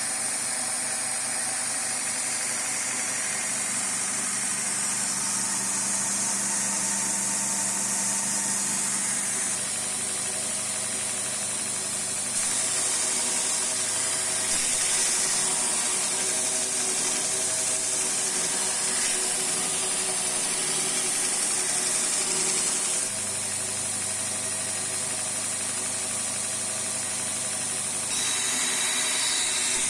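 Homemade belt grinder running: its 1.8 kW, 2850 rpm electric motor hums steadily while the abrasive belt hisses over the wheels. The sound shifts abruptly a few times.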